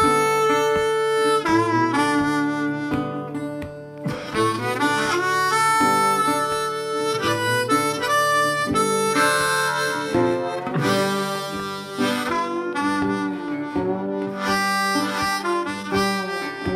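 Instrumental background music, playing steadily.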